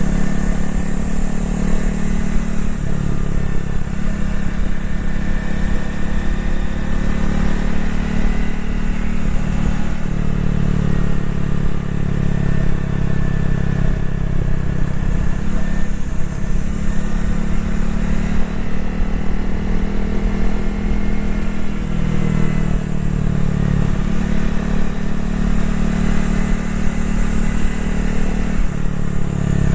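Honda CRF250L's single-cylinder engine and exhaust under way on the road. The engine note rises and drops several times with throttle and gear changes.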